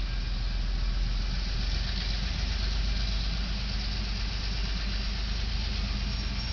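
Diesel locomotive's engine running during shunting moves, a steady low rumble mixed with the hiss of street traffic.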